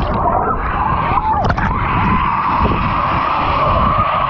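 Muffled rumble and bubbling of water heard with the microphone under the surface, with a steady hum running through it.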